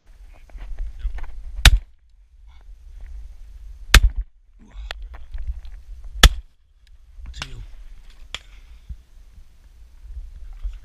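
Over-and-under shotgun firing at flying ducks: three loud shots a little over two seconds apart, with a weaker shot near the end and fainter cracks in between. A low rumble of wind on the microphone runs underneath.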